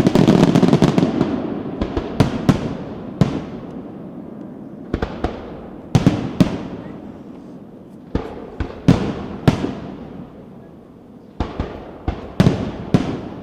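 Aerial fireworks shells bursting: a dense volley in the first second or so dies away, then a string of about fifteen single sharp bangs follows, some in quick pairs, each with a rolling echo that fades.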